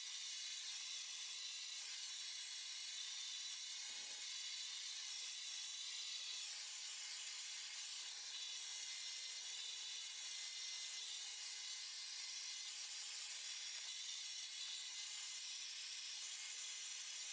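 Handheld hair dryer blowing steadily: an even hiss of rushing air that holds at one level throughout.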